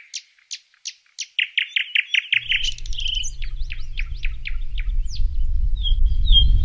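Birdsong: rapid series of high chirps and trills. A low rumble comes in about two and a half seconds in and swells steadily louder beneath them.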